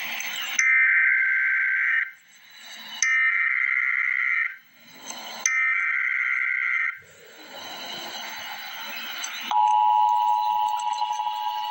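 Emergency Alert System SAME header: a two-tone digital data burst sent three times, each about a second and a half long, with hiss before, between and after. About nine and a half seconds in, the steady two-tone EAS attention signal begins.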